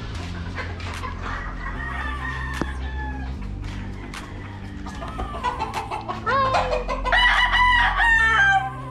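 Gamefowl rooster crowing: a fainter crow about two seconds in, then a loud, long crow starting about six seconds in.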